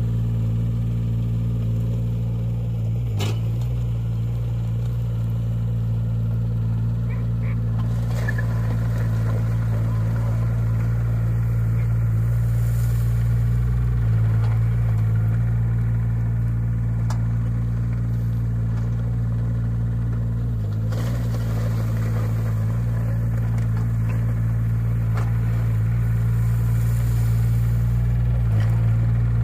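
JCB 8018 mini excavator's diesel engine running steadily as the machine tracks over gravel and works its dozer blade, with a few sharp clanks.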